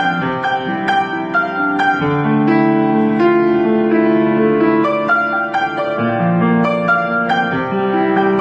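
Instrumental background music led by piano: a steady run of short notes over held low chords that change every few seconds.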